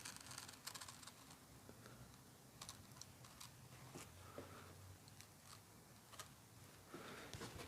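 Faint, scattered clicks and light scratching from hand work on ShadowFoam tool-organiser foam, as a tool outline is traced or cut.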